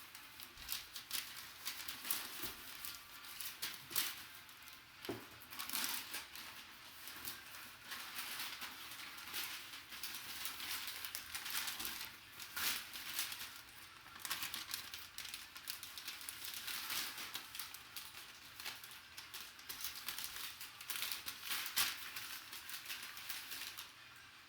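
Packaging crinkling and rustling as an autographed basketball is lifted and handled in its wrapping, with irregular crackles and small clicks throughout, easing off near the end.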